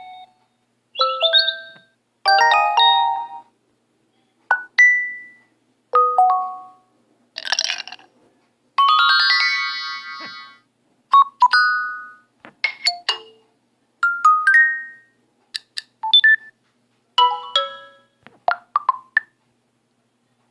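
Phone notification tones previewed one after another: over a dozen short, different electronic chimes and jingles, mostly about a second long, with brief gaps between them.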